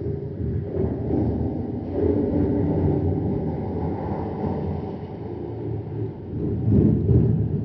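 Distorted horror sound effect: a dense, low rumble that swells about two seconds in and again near the end, where it is loudest.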